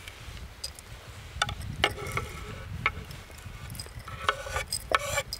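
Scattered small clicks and taps of dried juniper berries and spices being handled on a wooden board and against a glass jar. About four seconds in comes a quicker run of knife taps and scrapes on the board as the berries are crushed with the blade.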